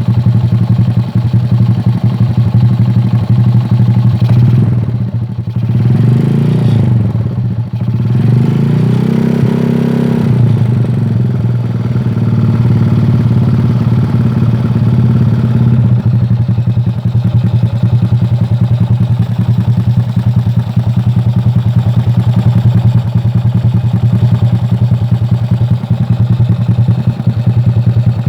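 Honda Supra Fit's 100cc single-cylinder four-stroke engine breathing through an aftermarket Akrapovic racing exhaust, idling steadily. About five seconds in it is blipped twice, the pitch rising and falling each time, then it settles back to idle.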